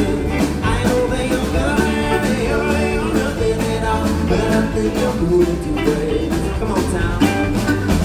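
Live band playing: acoustic guitar, mandolin, electric bass and drum kit together.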